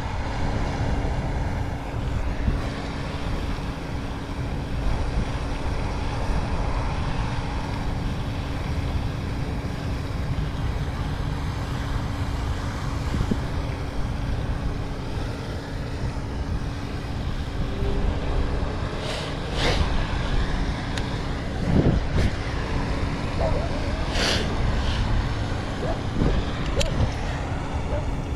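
Strong wind buffeting the microphone, a steady low rumble, with a faint steady hum under it and a few brief sharp clicks in the second half.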